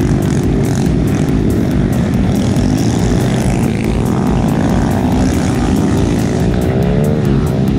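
Engines of a pack of small 125cc motorcycles, the rider's own Honda Grom's single-cylinder engine among them, running hard together. The engine pitch wavers up and down with the throttle, most clearly near the end.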